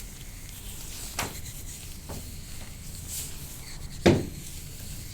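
Rubbing and handling sounds of hands working on a patient on a treatment table, with a couple of small clicks and one sharp, much louder knock about four seconds in.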